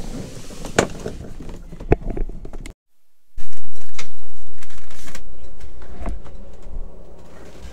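Scattered knocks and clicks from hands handling a wet/dry vacuum hose, tools and a boat's old water heater tank. About three seconds in the sound cuts out briefly, then a low rumble starts suddenly and fades away over a few seconds, with a few more knocks.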